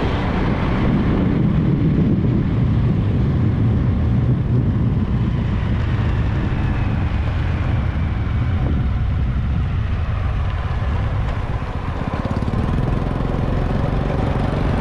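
A motor vehicle under way on a street: steady low engine and road noise, dipping briefly about twelve seconds in.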